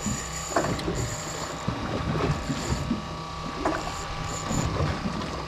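Boat engine idling with a steady hum, with scattered small knocks and clicks of fishing gear and the deck.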